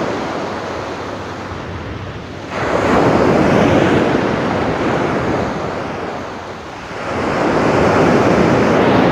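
Sea surf breaking on the beach, with wind on the microphone. The noise swells up about two and a half seconds in and again about seven seconds in.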